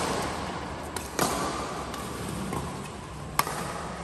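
Badminton rackets striking the shuttlecock in a rally: three sharp hits, at the start, after about a second and after about three seconds, each with a brief ring in a large hall.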